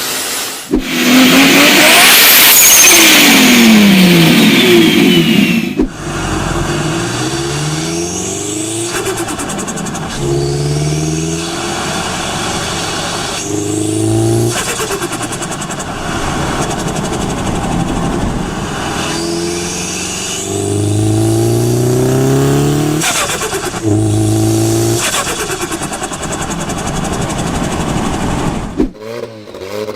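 Turbocharged car engines revving hard and running up through the gears. Each lift-off of the throttle brings a short burst of turbo flutter, a fluttering chatter of air from the turbo, followed by the engine's pitch climbing again. The first few seconds are a louder, noisier burst of a car accelerating hard.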